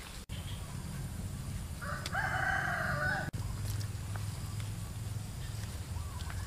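A rooster crowing once, about two seconds in, a single call lasting a little over a second, over a low background rumble.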